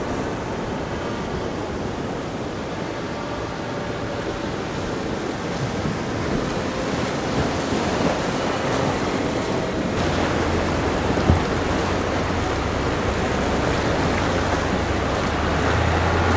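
Sea waves washing against a rocky shore, a steady surf noise with some wind on the microphone.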